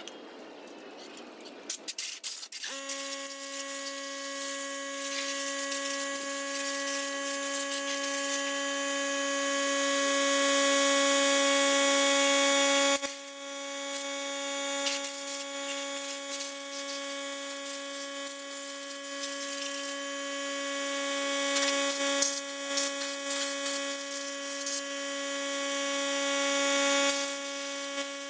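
A steady electrical hum with a stack of overtones starts about three seconds in and runs on, with scattered clicks and rustling over it.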